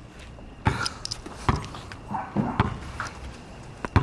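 Basketball bouncing on street asphalt: a handful of separate thuds at uneven intervals.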